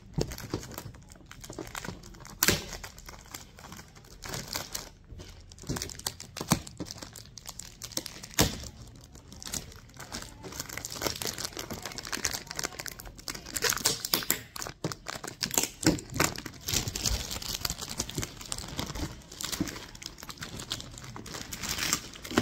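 Clear plastic gift wrapping being crinkled and torn open by hand: irregular rustling with sharp crackles, busier and louder in the second half.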